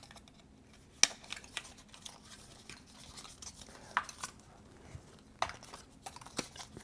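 A small cardboard phone-accessory package being handled and opened: scattered sharp clicks and taps with light rustling, the sharpest about a second in and again around four, five and a half and six and a half seconds.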